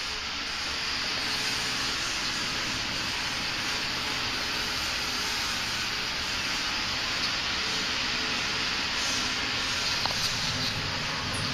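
Office-building elevator running with a steady, even rushing noise, a few faint ticks near the end. It is a noise that makes the rider doubt the lift is safe to ride.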